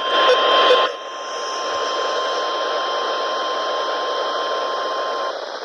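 NOAA Weather Radio 1050 Hz warning alarm tone, one steady pitch over receiver static hiss. It is louder and harsher for about the first second, then goes on more softly and stops about five seconds in.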